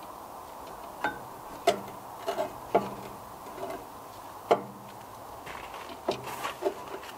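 About ten irregular light clicks and knocks over several seconds, from hands and tools working on parts.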